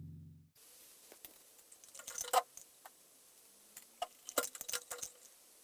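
A low hum dies away in the first half-second, followed by scattered light clicks and taps of small hard objects being handled, in a cluster about two seconds in and another between four and five seconds.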